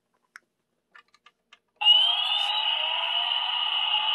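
A few faint clicks, then about two seconds in a Toy State toy police helicopter's battery-powered rotor sound starts suddenly. It rises briefly in pitch, then runs on as a loud, steady electronic whir.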